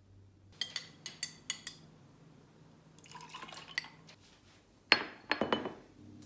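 Kitchenware being handled: five quick clinks with a ringing tone in the first two seconds, a short stretch of rustling noise, then a few louder knocks near the end.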